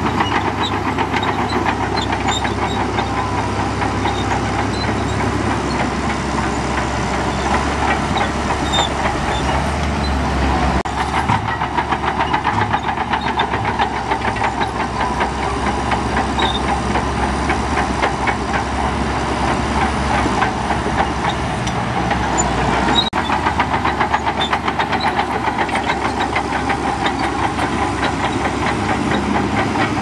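Shantui DH17C2 bulldozer's diesel engine running steadily under work with a dense, rapid rattle. The low rumble shifts in pitch about 11 seconds in and again about 23 seconds in.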